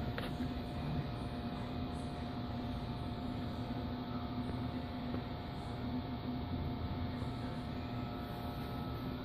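A steady machine hum with two held tones over a soft hiss.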